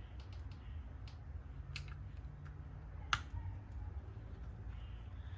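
Scattered small clicks and taps of small RC car parts and screws being handled, with one sharper, louder click about three seconds in, over a steady low hum.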